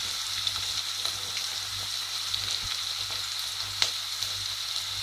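Chopped onion frying in hot oil with mustard and cumin seeds in a saucepan: a steady sizzle with scattered small crackles and one sharper crack about four seconds in.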